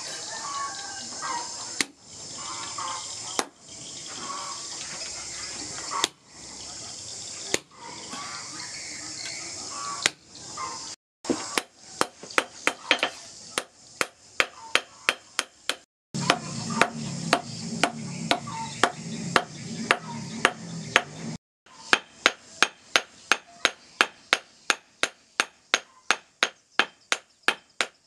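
Hand hammer striking a hot steel machete blade, and a handled punch set on it, on a steel post anvil: at first single blows a second or two apart over a steady hiss, then steady rapid hammering of about three blows a second.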